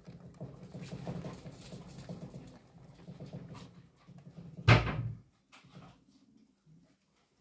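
Wooden gerbil exercise wheel spinning under a running gerbil, a fast, uneven rattle over a low rumble. About four and a half seconds in comes a single loud thump as the wheel's running stops.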